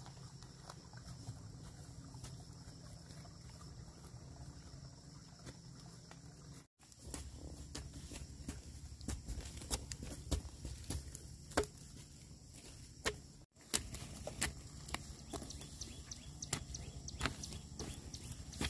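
Scattered sharp clicks and crunches of bamboo dibbling poles jabbing planting holes into dry, burnt hillside soil, mixed with footsteps in the charred debris, over a steady high drone of insects. The sound cuts out for an instant twice.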